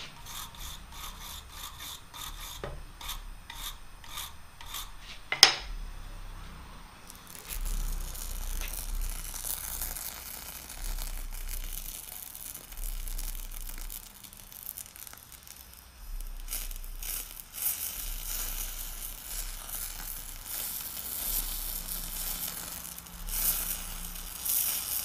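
Wire brush scrubbing scale off a steel shaft in quick repeated strokes, then a single sharp click. Then a Eutalloy Ultra Jet oxy-acetylene powder torch hisses, rising and falling as it lays metal powder onto the worn end of the shaft to build it up.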